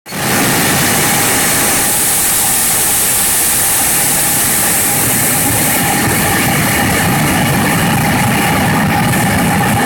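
Car engine running steadily with road and wind noise, heard from inside the cabin.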